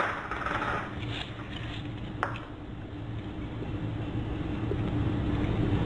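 Soft squishing of hands working sticky rice into salted cabbage, over a steady low hum, with one sharp click a little over two seconds in.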